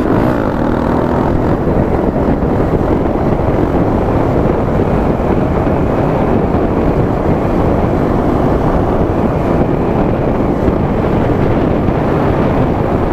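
Wind rushing over a helmet-side camera microphone while riding a 2015 Honda Grom, its small 125 cc single-cylinder engine running underneath at steady road speed.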